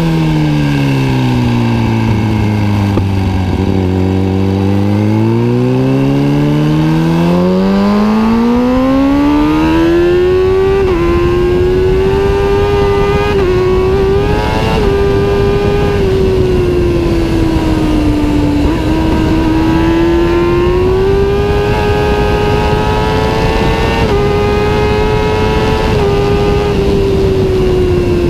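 Kawasaki ZX-6 inline-four engine through a Two Brothers aftermarket exhaust, running loud. Its note falls low about four seconds in and climbs back over several seconds, then holds high with small rises and dips.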